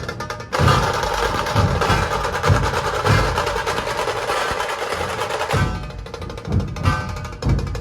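Dhol tasha ensemble playing: deep dhol drum strikes in a steady beat under fast tasha drum rolls. The playing swells into a dense roll about half a second in and thins back out a little after five seconds.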